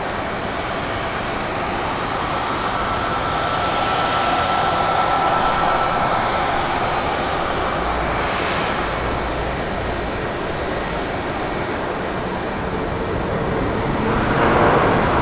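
Airliner jet engines running, a steady rush with a thin whine that swells through the middle and eases off, then builds again near the end.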